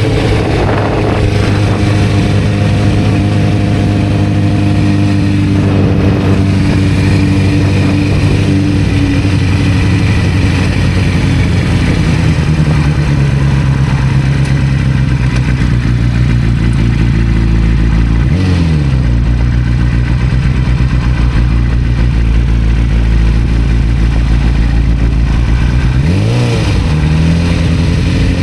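1991 Kawasaki ZZR-400 motorcycle's inline-four engine running under way, its note rising and falling slowly with the throttle. Twice, about two-thirds of the way through and again near the end, the pitch dips sharply and climbs straight back.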